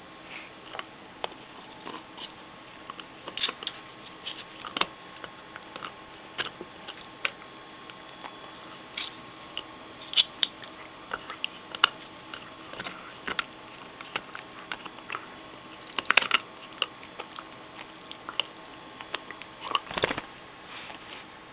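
Sable Shetland Sheepdog puppy chewing and gnawing a large rawhide bone: irregular crunching and clicking bites, with a few louder spells of crunching.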